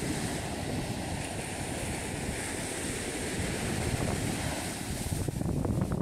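Sea waves washing, with wind rumbling on the microphone; no music or voice. About five seconds in, the sound turns duller and choppier, with short gusts and splashes.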